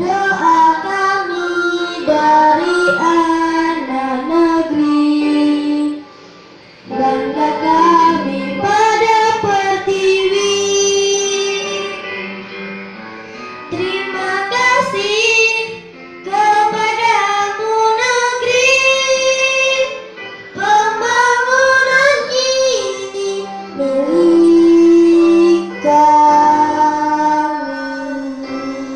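A young girl singing a song in Indonesian into a microphone, in sung phrases with a short pause about six seconds in.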